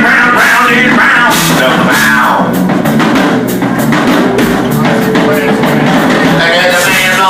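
Live band playing an instrumental passage of a rock-soul song, with a steady beat on the drum kit.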